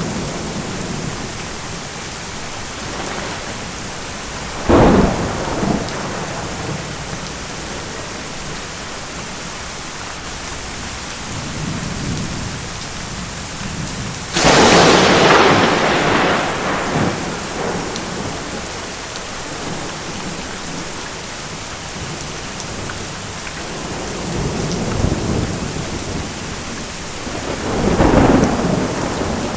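Steady rain falling through a thunderstorm, with three sudden thunder cracks that rumble off. They come about five seconds in, halfway through and near the end, and the middle one is the loudest.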